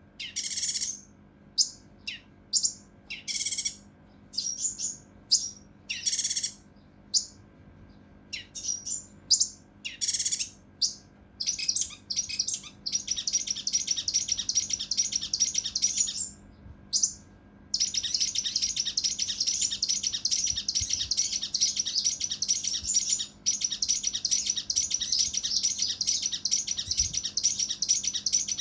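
Kinoi (cucak rante mas) songbird singing its harsh, rapid 'tembakan' bursts. At first these come as short separate calls. From about twelve seconds in they run together into a long, fast, rough rattling chatter, broken once by a brief pause.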